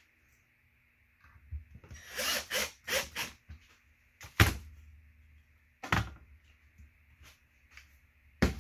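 Handling sounds on a workbench: a short burst of clattering noise and a few clicks, then three separate sharp knocks of tools or wood being set down, the second-to-last gap the longest.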